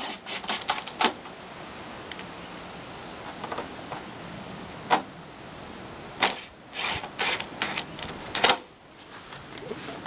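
Cordless drill driving screws into the sheet-metal top plate of a Carrier/Bryant A-frame evaporator coil: scattered sharp clicks and metal clatter, with a run of clicks and short rattles about six to eight and a half seconds in.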